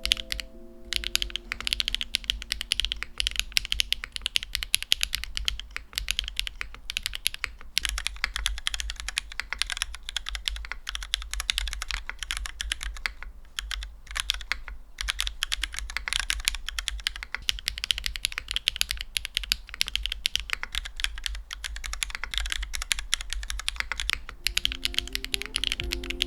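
Fast, continuous typing on a Parabolica 60 keyboard: a dense stream of key clacks with a few brief pauses.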